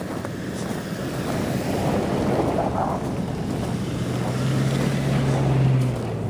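Wind rushing over the microphone, swelling in the middle, with a steady low hum joining a little past halfway.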